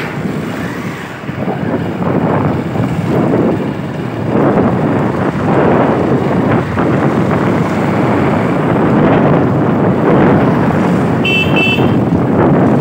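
Wind buffeting the microphone on a moving motorbike, mixed with rushing road and engine noise. Near the end a vehicle horn beeps once, briefly.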